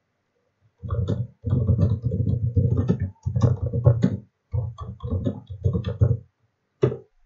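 Computer keyboard typing, in quick runs of keystrokes with short pauses between them and one last keystroke near the end.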